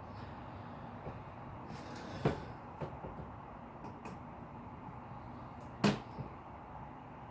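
Two sharp knocks, the second a little louder, about three and a half seconds apart, with a few fainter clicks between them, over a steady hiss.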